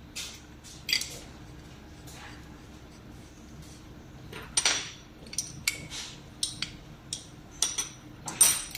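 Small metal parts of an LVLP spray gun clicking and clinking as they are handled and fitted together after a new green seal is put in. It comes as a string of short, sharp ticks with a slight ring, more frequent in the second half.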